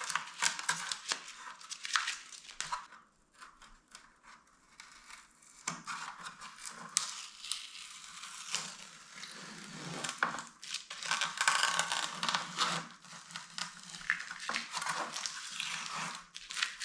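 Tape strips being peeled off a fibreglass repair and crumpled, a run of irregular tearing and crinkling with a quieter pause about three seconds in.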